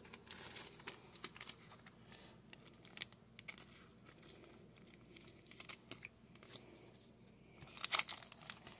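Faint rustling of trading cards being handled and slid against each other, with soft crackling of clear plastic, then a louder crinkling of a foil card-pack wrapper being picked up near the end.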